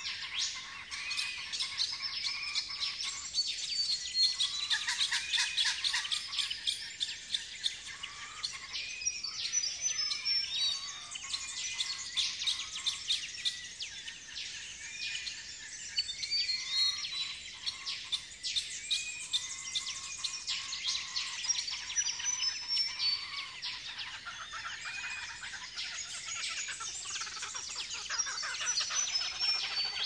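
Australian dawn bird chorus: many birds chirping and trilling at once, over a short arched note that repeats about once a second.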